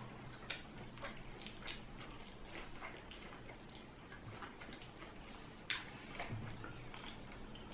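Faint eating sounds: chewing and lip smacks, with scattered small clicks as grilled chicken is eaten by hand and cut with a knife and fork on a plate. One sharper click comes about three quarters of the way in.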